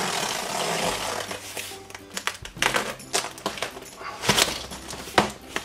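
Cardboard box packaging being opened and handled: a rough scraping rush of cardboard and packing tape for the first two seconds, then a few sharp knocks and thumps of the cardboard. Background music plays underneath.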